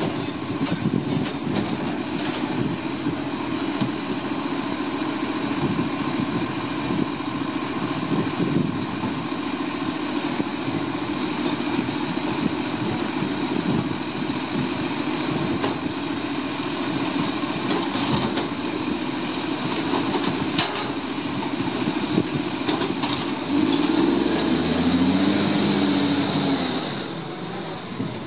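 Iveco side-loader garbage truck's diesel engine running at the kerb while the hydraulic bin-lifting arm works, with a steady high whine over the engine. Near the end the engine revs up, rising in pitch and getting louder.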